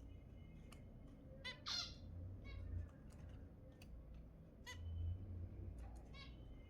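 Zebra finches calling: several short calls at irregular intervals, the loudest about two seconds in, over a low steady hum.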